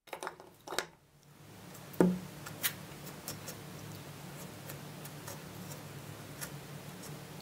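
Clicks and knocks of a cut-open adhesive tube and a wooden stick being handled, with one sharp knock about two seconds in, then irregular small ticks as the stick dabs and spreads stiff, partly hardened glue, over a steady low hum.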